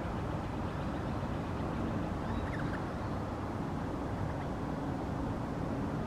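A steady, noisy background rumble dominates. A few faint, brief chirps from an eastern rosella come through it about two and a half seconds in.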